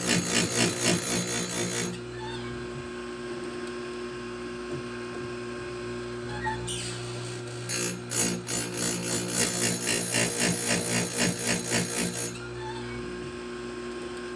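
Oregon bench chain grinder: its motor runs with a steady hum while the grinding wheel twice bites into the chain's cutters with a fast, pulsing rasp. The first rasp runs for the opening two seconds and the second from about eight to twelve seconds in; the motor hums alone in between.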